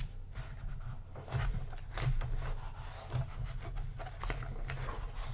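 Pages of a paperback graphic novel being turned and handled by hand: paper rustling and rubbing with many small scattered ticks, over a low steady hum.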